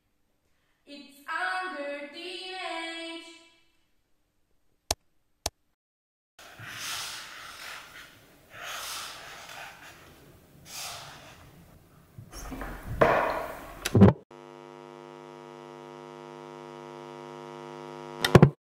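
A brief phrase of young voices singing, two sharp clicks, a run of hissing, scratchy strokes and a loud hit with a low rumble. Then a steady electrical buzzing hum grows slightly louder and ends in a click.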